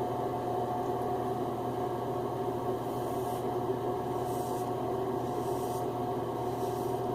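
A double-edge safety razor scraping over a lathered scalp in a few faint strokes, on a against-the-grain final pass, over a steady hum with one constant tone.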